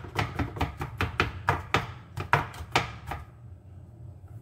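Kitchen knife mincing garlic on a cutting board: quick, uneven chopping strokes, several a second, stopping about three seconds in.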